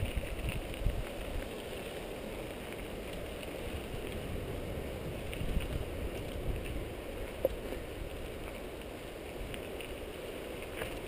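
Mountain bike rolling along a dry dirt single-track trail: steady tyre noise on dirt and loose stones, with a few sharp clicks and knocks from the bike and wind buffeting the microphone.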